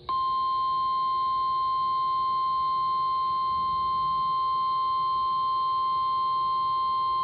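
NOAA Weather Radio 1050 Hz warning alarm tone: one steady, unbroken beep-like tone, the signal that a warning message, here a flash flood warning, is about to be read.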